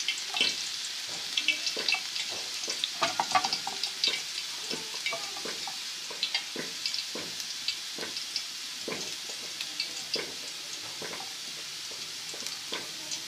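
Chopped garlic and green chillies frying in hot ghee for a tadka. It is a steady sizzle with scattered sharp pops and crackles.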